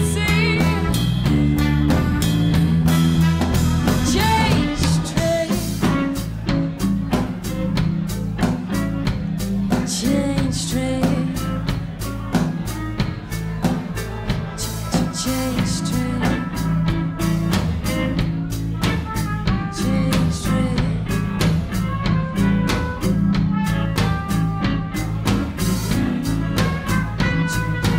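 Live blues-rock band playing: a singer's vocal line in the first few seconds, then an instrumental stretch of guitar and bass over a drum kit keeping a busy, steady beat.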